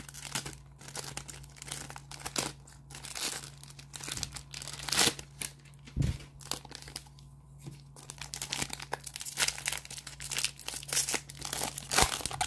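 Foil wrapper of a Panini Mosaic Football trading-card pack crinkling in the hands and being torn open, a run of irregular crackles and rips.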